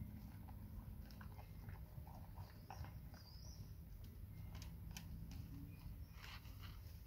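Labrador retriever chewing and biting into a large grilled sandwich: faint, irregular smacking and crunching bites.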